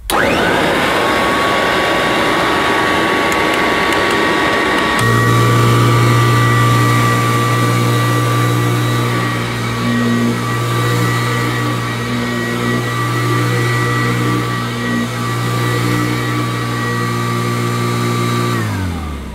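Kirby Classic III upright vacuum cleaner switched on, its motor spinning up to a steady high-pitched whine. About five seconds in, a deep hum joins it. Near the end it is switched off and the whine falls away as the motor runs down. The owner finds the high-pitched scream unlike a Kirby and suspects something wrong with the motor, though it may be how this model sounds; the suction relief valve is open.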